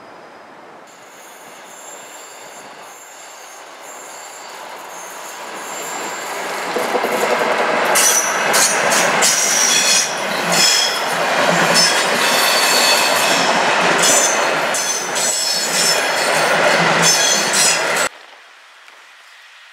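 Passenger train hauled by a Siemens Vectron electric locomotive passing close by, growing louder over several seconds. Its wheels squeal in high steady tones and clatter rapidly on the rails. The sound cuts off suddenly near the end.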